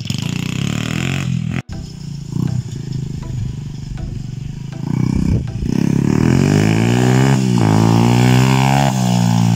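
Small 125 cc Chinese dirt bike engine being ridden, growing louder as the bike approaches, its pitch rising and falling as the throttle is worked. After the ride the rider finds it pulls in first gear but is weak beyond that and chokes in fourth, which is put down to running too rich.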